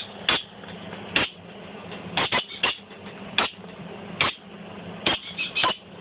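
Baby green-cheeked conure making short, loud begging squawks again and again, roughly one a second, with some in quick twos and threes: the chick is hungry and calling for food. The calls are fuzzy, overloading the phone's microphone.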